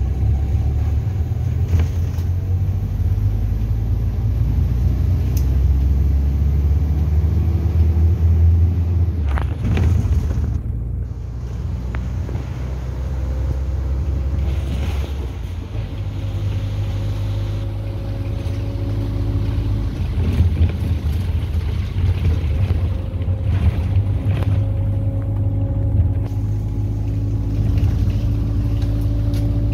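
Minibus engine and road noise heard from inside the passenger cabin, a steady low rumble. In the second half a faint whine rises slowly in pitch as the bus picks up speed.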